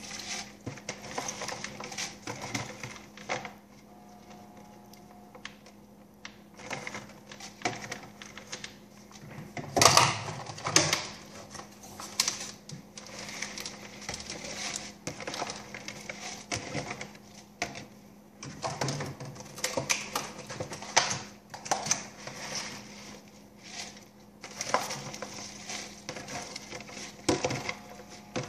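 Fresh kale leaves being torn by hand and dropped into a soup pot, with a plastic produce container crinkling: irregular rustling and crackling, over a faint steady hum.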